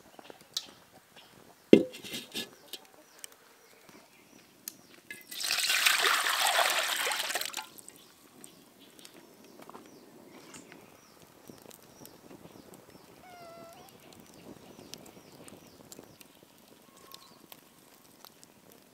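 A sharp knock, then liquid pouring for about two seconds, starting about five seconds in, with scattered light clicks around it.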